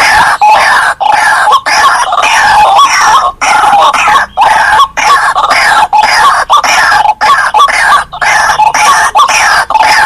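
White-breasted waterhen (ruak-ruak) calling loudly: a fast, continuous run of harsh, repeated notes, broken by short gaps every half second to a second.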